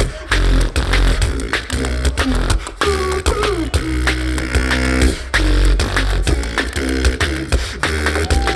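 Two beatboxers performing an original drum and bass routine through microphones: rapid vocal snares and hi-hat clicks over a deep sub-bass and hummed, gliding bass lines. The beat briefly drops out just after the start and again about five seconds in.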